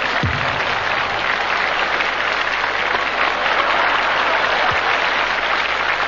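Live theatre audience applauding, a dense steady clapping, with two short dull low thumps under it, one just after the start and one about five seconds in.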